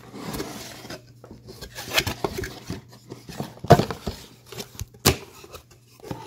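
Cardboard product box being handled and opened: scattered scrapes and rustles with a few sharp knocks and taps, the loudest about midway and another a second or so later.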